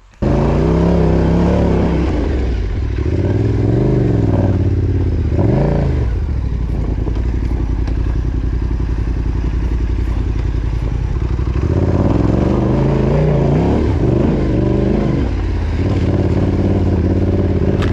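Yamaha Ténéré 700's parallel-twin engine running steadily at low revs, revved up and down in short blips during the first few seconds and again about twelve seconds in.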